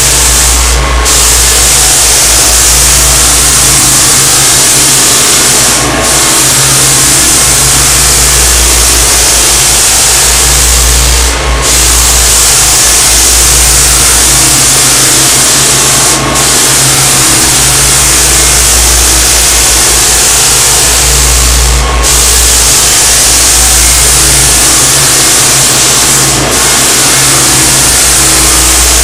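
Continuous-belt drum floor sander with 60-grit paper running steadily at full power, cutting down through a maple floor, with its dust-containment vacuum running alongside. The noise dips briefly about every five seconds.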